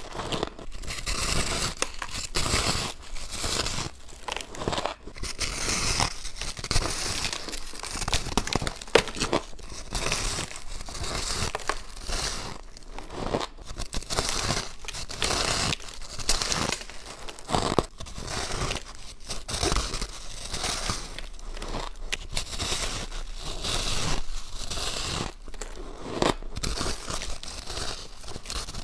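Close-up crunching of repeated bites into a large block of refrozen powdery shaved ice: a dense, crackly crunch that comes in clusters, one bite after another.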